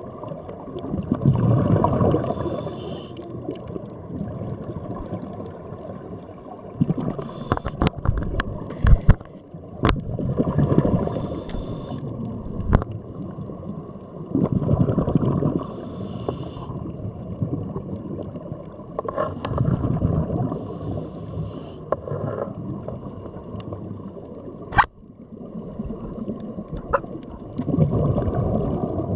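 Scuba regulator breathing underwater: a hiss on each inhale, then a rush of exhaled bubbles, repeating about every four to five seconds. A few sharp clicks come through, the loudest a little after halfway.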